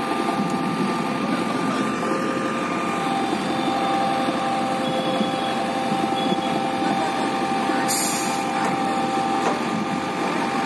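JCB 3DX backhoe loader's diesel engine running steadily with the hydraulics working, with a steady whine on top, as the machine levers itself onto a flatbed truck. A brief hiss about eight seconds in.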